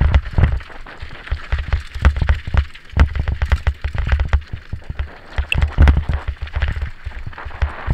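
Wind buffeting the microphone of a Drift HD action camera on a mountain biker descending a dirt trail at speed, with the tyres on the dirt and the bike rattling and knocking over bumps.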